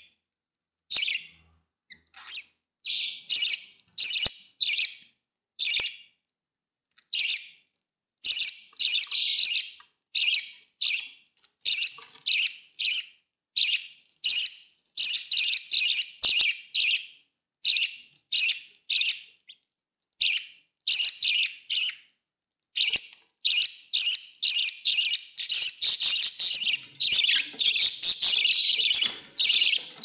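Budgerigar chirping in short, high chirps separated by brief silences. The chirps come faster from about three-quarters of the way through and run almost together near the end.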